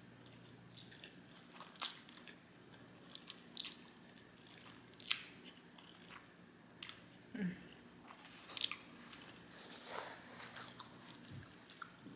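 A person chewing a mouthful of food with lips smacking: a string of irregular wet clicks.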